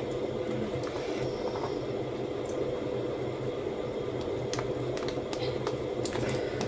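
Steady low background hum, with a few faint clicks of hands handling a scrapbook album and its metal binder rings.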